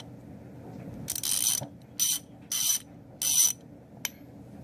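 Fine-toothed Kobalt socket ratchet being swung back and forth, giving four short bursts of rapid clicking from its pawl and teeth.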